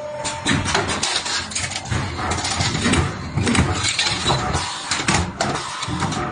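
CNC 2D flat steel wire bending machine with punching function running: a steady mechanical rumble with frequent irregular sharp clicks and knocks.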